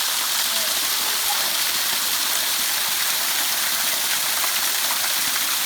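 A small waterfall, about 12 to 14 feet high, with its steady rush of falling water.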